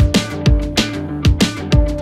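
Background music with a steady, driving beat: electronic drums with a held synth tone.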